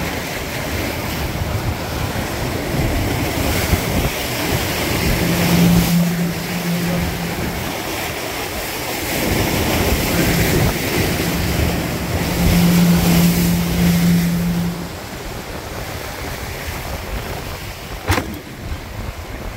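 Wind and rushing water as a Farr 30 racing sailboat sails fast downwind through breaking waves, the noise swelling and easing as it surges. A steady low hum comes in twice in the middle, and a single sharp knock sounds near the end.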